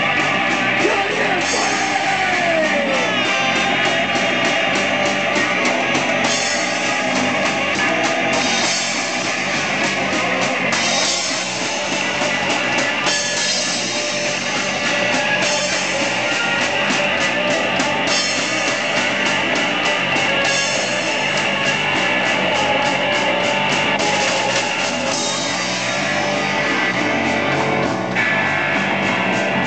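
Live rock band playing, with electric guitar and a drum kit; the cymbals keep a steady beat.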